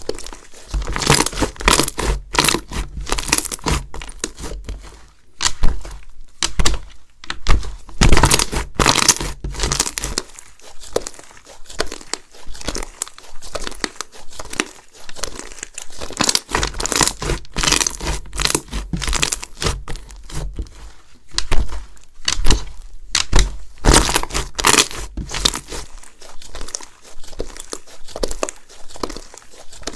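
Slime being squeezed, stretched and pressed by hand: dense, irregular sticky crackles and pops, in louder and quieter clusters.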